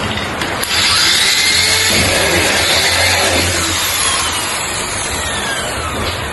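A power tool running steadily, with its motor pitch gliding slowly. It rises to full loudness about a second in and eases slightly in the second half.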